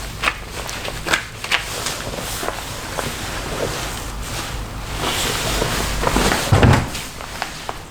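Irregular rustling and squishing with short clicks, as hands work conditioner through hair coated in a Nutella mask, with a louder stretch and a low thump near the end.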